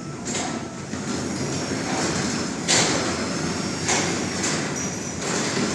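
Garage door opener running and the door rolling along its tracks with a steady rumble, several sharp clacks and rattles on top, the loudest near the middle. This is the door travelling while its open and close limits are being set.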